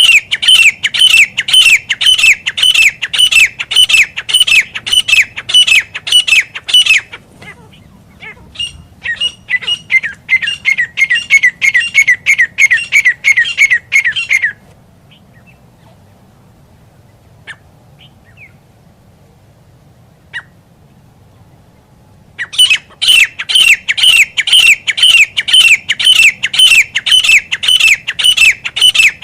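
Grey francolin calling: loud, harsh notes repeated rapidly, about three a second. The calling breaks off, comes back fainter and drops in pitch as it stops, then after a silent stretch of several seconds starts again loud near the end.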